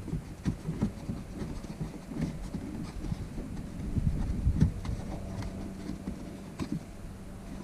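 Irregular small knocks, clicks and scrapes of hands working a screw into a car tail light housing, a tight spot that is hard to get the hands into.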